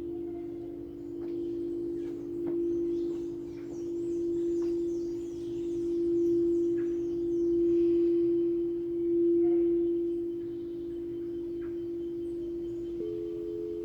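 Singing bowl ringing with a steady low tone that swells and fades in slow waves roughly every one and a half to two seconds. Faint high tinkling notes sound in the first half, and a second, higher bowl tone joins near the end.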